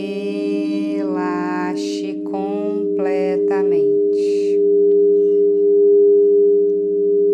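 Steady drone of layered pure tones, the 432 Hz and 528 Hz meditation frequency track, swelling a little louder in the second half. Over the first four seconds, held voice-like pitched sounds come and go above it, with a couple of short breathy hisses.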